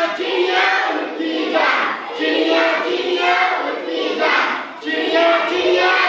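A group of children singing an action song together in short phrases about a second apart.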